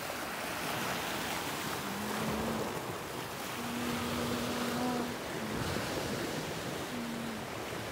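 Sea waves washing, with wind. A few faint, short, held low notes come in from about two seconds in.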